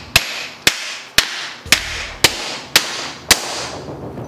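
Hammer striking a homemade steel plumbing-reducer installer to drive a new seal into an M32 gearbox cap: seven sharp strikes about two a second, each ringing briefly, stopping a little after three seconds in.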